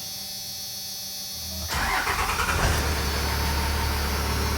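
A 1996 Cummins 12-valve 5.9 L inline-six turbodiesel is started. It cranks briefly, catches about a second and a half in with a sudden rise in level, and settles into a steady idle.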